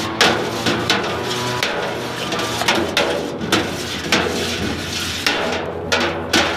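Long metal spoon stirring liquid malt extract into wort in a stainless steel brew kettle, knocking against the pot's side and bottom about twice a second.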